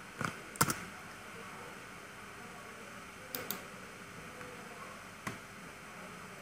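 A few sharp clicks from a computer keyboard and mouse over a faint steady hiss: a quick pair about a quarter to half a second in, a close double click a little past the middle, and a single click near the end.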